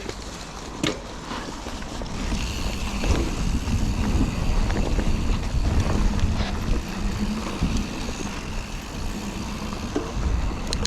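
Mountain bike rolling fast down a dirt trail: wind buffeting the camera microphone over rumbling tyres and the rattle and knock of the bike over rough ground, getting louder about two seconds in as speed builds.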